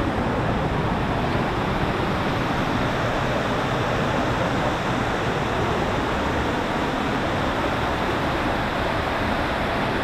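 Steady rush of Ravana Falls, water pouring down a rocky cascade into a stream, an even roar with no breaks.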